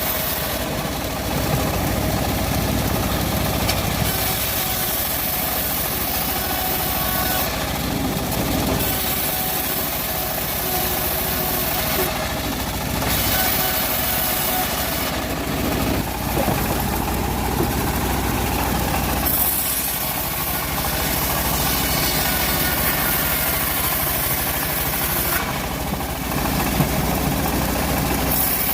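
Engine-driven homemade bandsaw mill running steadily while its blade saws through teak log. A high rasping hiss from the cut comes and goes every few seconds over the constant engine drone.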